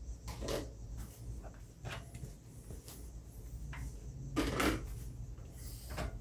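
Dishes and kitchenware being handled: scattered light knocks and clicks, with one louder clatter about four and a half seconds in.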